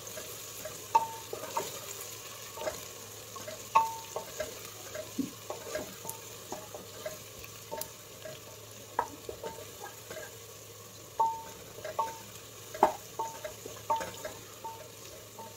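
Wooden spatula stirring onions, garlic and chillies frying in a pressure cooker pot: irregular knocks and scrapes against the pot, each ringing briefly, over a steady faint sizzle.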